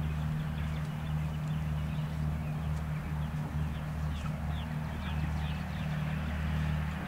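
A horse cantering on sand footing, its hoofbeats falling in a steady stride rhythm under a steady low hum, with high bird chirps.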